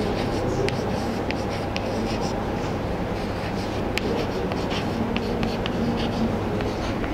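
Chalk tapping and scratching on a chalkboard as words are written, in short irregular clicks over a steady low background hum.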